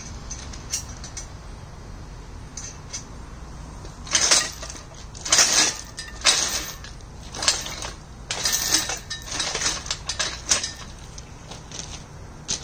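Steel engine hoist being moved back over gravel in a series of short crunching, rattling pulls, about one a second, with the hanging chain clinking against the frame.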